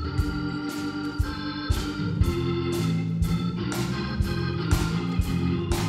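Organ playing sustained chords that change every second or so, with drums keeping a steady beat of about two hits a second: a church band's instrumental introduction to a gospel song.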